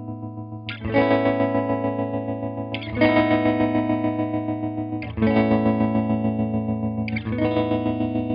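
Chords on a semi-hollow electric guitar, struck about every two seconds, run through an EarthQuaker Devices Hummingbird Repeat Percussions tremolo pedal on its slowest rate. Each chord rings out with a quick, even, choppy pulsing in volume.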